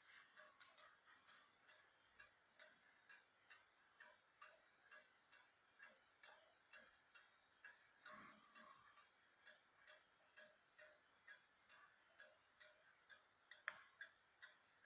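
Swiss Neuchatel mantel clock running, ticking faintly and evenly at about two ticks a second, with one louder click near the end.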